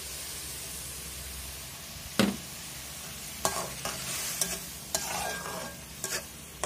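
Mutton liver masala with freshly added yogurt sizzling in an aluminium pot, with a single sharp knock about two seconds in. Then a metal slotted spatula stirs it, scraping against the pot in short repeated strokes.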